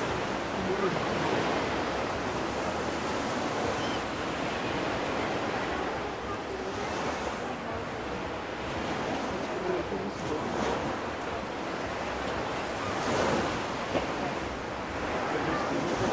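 Small Black Sea waves washing onto a sandy beach: a steady wash of surf that swells now and then, with wind on the microphone. One short tap near the end.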